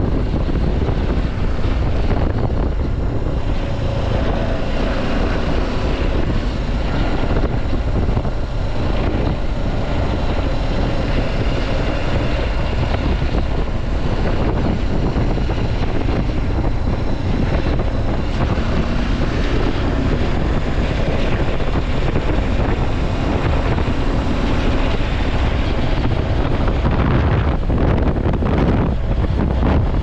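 BMW G 310 GS motorcycle under way, its single-cylinder engine running steadily beneath heavy wind noise on the microphone.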